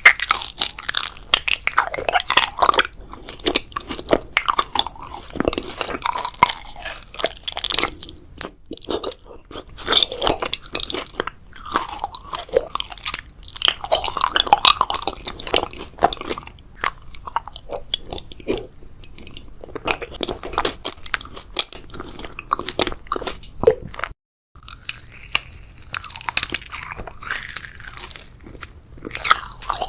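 Close-miked chewing and crunching of food, with bites and wet mouth sounds in an irregular stream of crackles, broken once by a short silent gap near the end.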